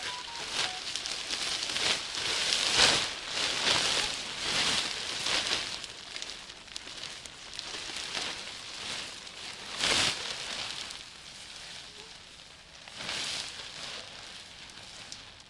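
Rain fly fabric of a Naturehike Mongar 2 tent rustling and swishing as it is handled and spread over the tent, in uneven strokes with a few louder ones.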